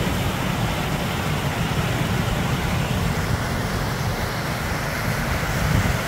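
A fast-flowing stream rushing in white water, a steady hiss of water, with wind buffeting the microphone and adding a low, fluttering rumble.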